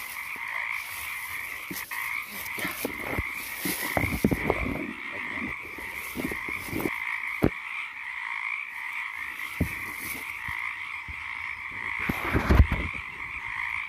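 A chorus of frogs calling without pause from the water, with a few rustles and thumps from moving through dry stems and leaves; the loudest thump comes near the end.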